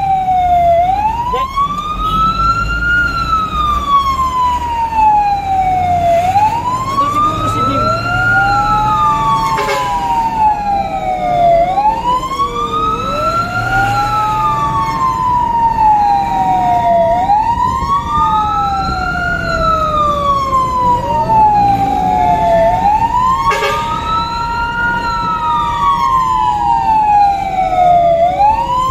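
Fire engine wail siren heard from inside the cab, sweeping up and falling back over and over, about every five to six seconds. A second siren tone rises and holds level, overlapping it.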